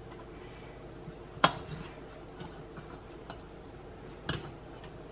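Hands pressing Canadian bacon slices into a metal muffin tin: a sharp click about a second and a half in and a softer one near the end, over a faint steady hum.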